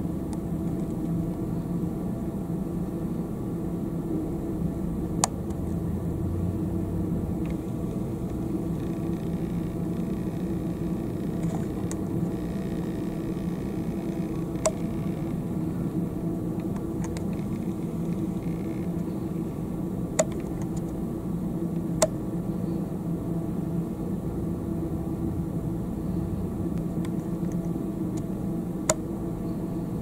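Steady low rumbling hum, with a few sharp clicks scattered through it.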